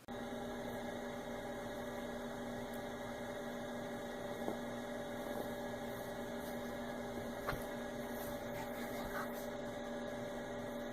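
A steady electrical hum made of several fixed tones, starting and cutting off abruptly, with a couple of faint ticks in the middle.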